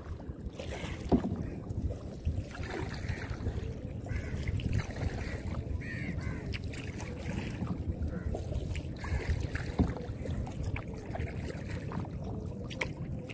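Crows cawing again and again over the low, steady water and paddle noise of a small boat moving through the water.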